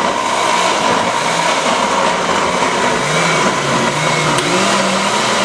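Countertop electric blender running at a steady speed, puréeing boiled tomatillos, chiles and onion into a green salsa: a loud, even motor whine over the noise of the liquid in the jar.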